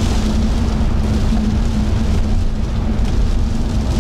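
Steady rain falling, with a steady low hum of a vehicle underneath.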